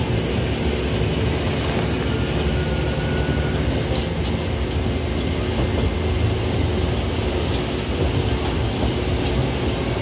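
Diesel construction machinery running steadily: a tracked excavator's engine and hydraulics working as it swings. A couple of faint clicks come about four seconds in.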